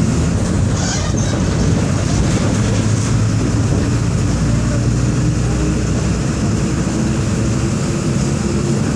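Diesel engine of a Volkswagen 17.230 EOD bus running steadily under way, a low, loud drone.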